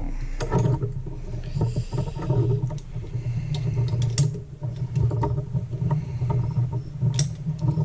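Scattered clicks and knocks of metal tools and a small-engine carburetor being handled, over a steady low hum.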